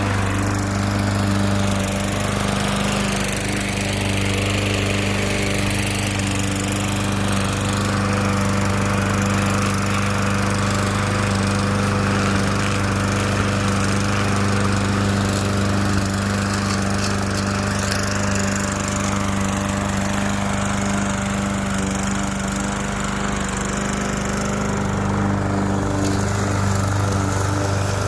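Toro gasoline walk-behind lawn mower's single-cylinder engine running steadily while cutting grass, its note shifting slightly near the end.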